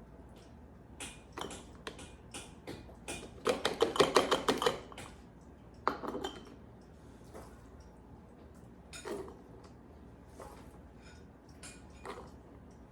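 Kitchenware clinking and clattering while canning: scattered knocks, with a quick rattling run of ringing clinks about three and a half seconds in, then a few lone knocks.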